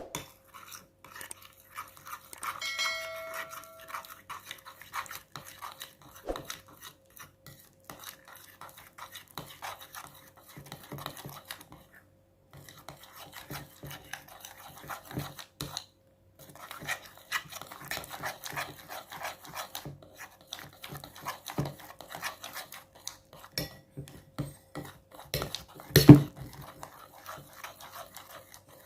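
A utensil scraping and tapping against a bowl while stirring glue and borax activator into slime, in irregular small clicks and scrapes. A short ringing tone sounds about three seconds in, and there is one louder knock near the end.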